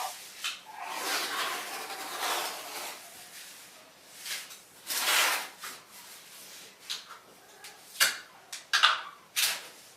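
Tape being pulled off the roll in several drawn-out, noisy stretches, with a few short sharp tears or pats near the end, as it is run around the edges of a mirror.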